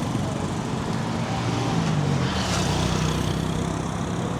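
Street traffic: vehicle engines running with a steady low hum over general road noise.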